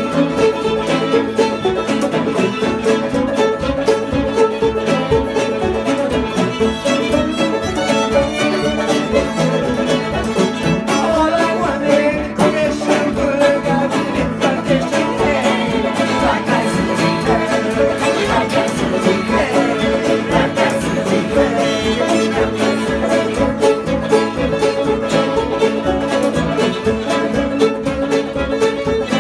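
Old-time string band playing an instrumental tune live: fiddle carrying the melody over banjo and acoustic guitar keeping a steady beat.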